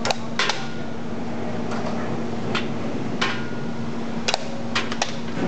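Electric chain hoist on a test rig: a steady hum with sharp metallic clinks of the load chain at irregular intervals, about eight in five seconds.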